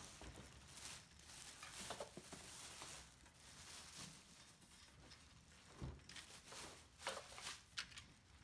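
Faint rustling and crinkling of plastic wrapping and cardboard packaging being handled around a small engine, with a few soft knocks.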